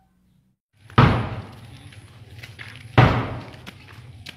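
Two heavy thumps about two seconds apart, each dying away over about half a second, over a low steady hum; they begin after a brief moment of silence.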